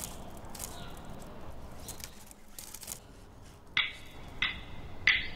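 Faint hiss with a few light crackles, then from about four seconds in, three sharp ringing percussion strikes about two-thirds of a second apart, as music begins.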